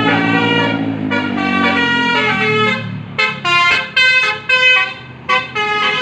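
An Indonesian bus's 'telolet' multi-tone horn playing a tune in stepped notes, held notes at first and then a run of short, separate toots from about halfway through. A low vehicle drone sounds under the first half and fades out.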